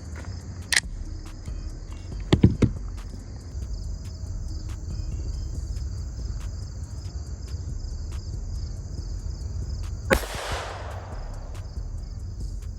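FN 502 Tactical .22 LR pistol being fired: single sharp shots, one under a second in, two in quick succession about two and a half seconds in, and another near the end. Crickets chirp steadily throughout.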